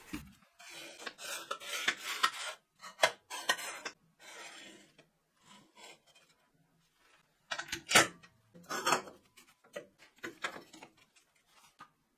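3D-printed plastic fixtures and a steel square tube being handled on a steel welding table: scraping and rubbing, with scattered knocks. There is a quiet spell in the middle and a sharp knock about eight seconds in.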